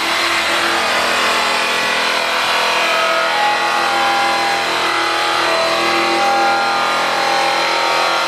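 Small yellow DeWalt cordless grinder fitted with a small abrasive disc, running with a steady high whine and grinding against the aluminium end of a semi truck's diesel tank as the weathered metal is cut back for polishing. The pitch wavers slightly as the disc is pressed on.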